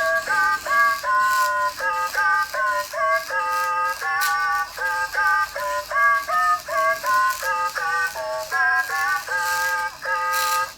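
Anki Cozmo robot singing a tune in its synthesized electronic voice: a quick run of short, clipped notes that stops abruptly at the end.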